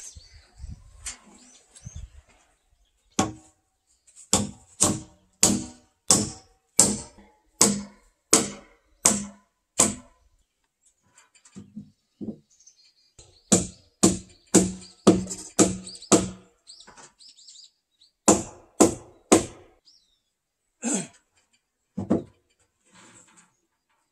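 Hammer blows driving nails into wooden rafters, in runs: about ten strikes at a steady rhythm of roughly one and a half a second, then about six, then three, then two single blows. Each strike rings briefly.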